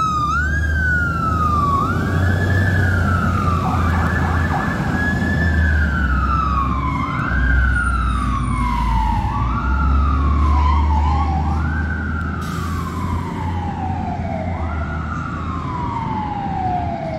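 Fire truck siren wailing: each cycle rises quickly and falls slowly, repeating about every two seconds, over a steady low rumble.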